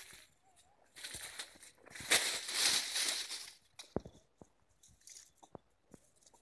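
Leaves and twigs of a fruiting tree rustling in two noisy bursts, the second longer and louder, followed by several sharp snaps and clicks.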